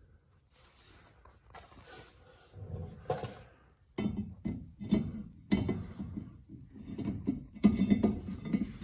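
Metal clunks, knocks and scraping as a two-piece brake rotor is handled and set onto the wheel hub. It starts about two and a half seconds in and comes thick and irregular from about four seconds on.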